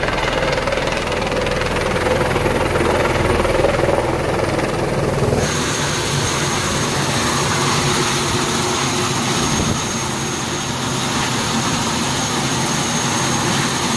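Light turbine helicopter with a shrouded fan tail rotor: first coming in to land with a heavy low rotor rumble, then, after a sudden change about five seconds in, running on the ground with its rotor still turning and a steady high whine over the noise.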